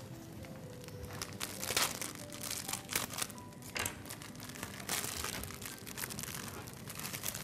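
A plastic-wrapped packet of toast being opened by gloved hands: irregular crinkling and rustling of the wrapper, with a few sharper crackles.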